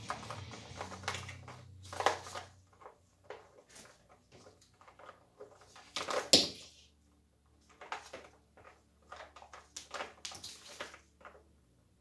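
Handling noise from untangling an air compressor's power cord: scattered clicks and knocks of the cord and plug, the loudest about two seconds and six seconds in.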